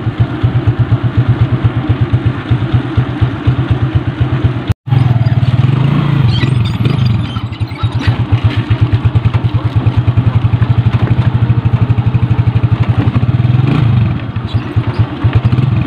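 Motorcycle engine running under way, with a rapid even firing beat and engine speed rising and falling a little. A brief dropout about five seconds in.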